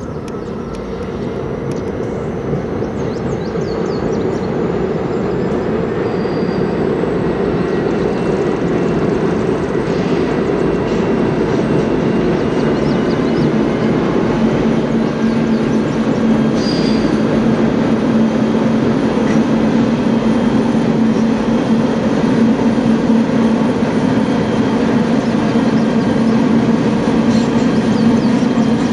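A train led by an EMD SD40-2 diesel locomotive approaching. The locomotive's turbocharged V16 diesel engine and the rumble of the train grow steadily louder, and a steady low engine tone comes up strongly about halfway in.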